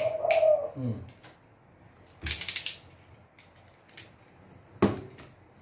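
A snap-off utility knife cutting the packing tape on a cardboard box: a short rasping cut about two seconds in and a sharp click near the end. A short pitched vocal sound falls in pitch right at the start.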